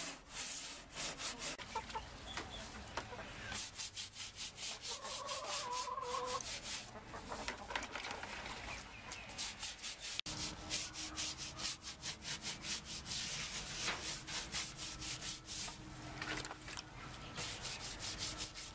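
Quick, repeated scraping strokes, several a second, from cleaning out a chicken coop, with a hen calling briefly about five seconds in.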